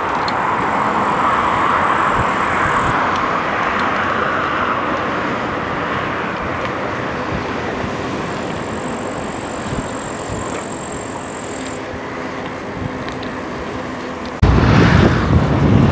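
Steady road and traffic noise heard from a moving electric bike: a rush of tyres and passing cars. Near the end it switches abruptly to louder wind rumble on the microphone.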